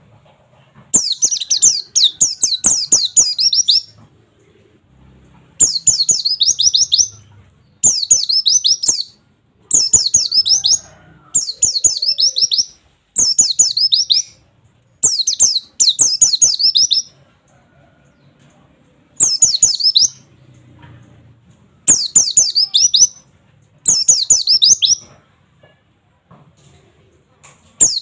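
A white-eye (pleci) sings its rapid 'wit wit wit' phrases, the fast 'nembak' song used as a training recording for young birds. Each phrase is about a second of quick, high, falling notes, and they repeat every couple of seconds with short pauses between them.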